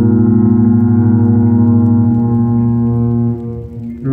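Foghorn sounding a loud, deep, steady blast that fades out about three seconds in, then a new blast at a slightly higher pitch starts abruptly just before the end.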